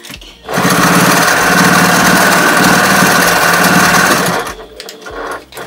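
Electric sewing machine running at full speed as it stitches fabric, with a fast, steady needle rhythm. It starts about half a second in and stops about four seconds in.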